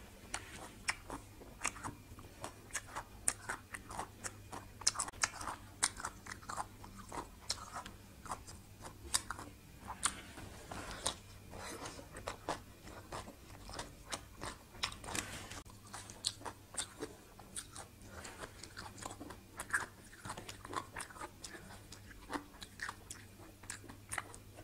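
Close-miked chewing of spicy salmon salad with fresh vegetables: a steady run of crisp crunches and wet mouth clicks, several a second.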